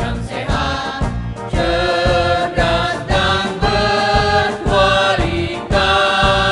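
A choir sings a song in Indonesian, holding long notes over an accompaniment with a steady beat.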